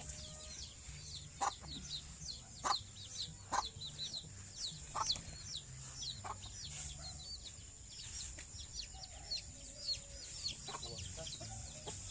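Native chickens clucking now and then, over a constant run of short, high-pitched chirps.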